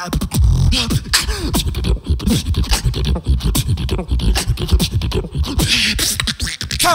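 Live beatboxing into a cupped handheld microphone: heavy bass kicks and sharp snare and click sounds in a fast, steady rhythm, mixed with short sung pitch slides.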